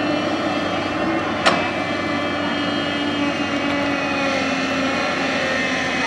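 JCB crawler excavator's diesel engine running steadily under load, with a hydraulic whine shifting slightly in pitch as the boom and bucket work. A single sharp clank about one and a half seconds in.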